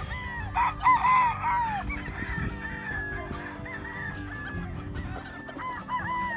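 Several young roosters crowing and clucking, with short broken calls overlapping. The calls are loudest about a second in and again near the end.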